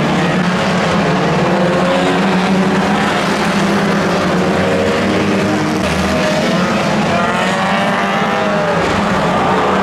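A pack of 1600cc banger racing cars running hard together around the oval, several engines revving at once, their pitches rising and falling against each other over a steady wash of engine and tyre noise.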